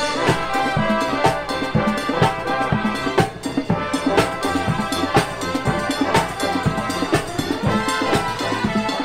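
Parade show music with a steady drum beat and percussion driving it.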